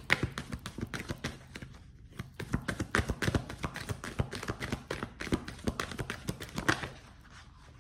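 A deck of tarot cards being shuffled by hand: a quick, uneven run of card clicks and slaps that stops about a second before the end.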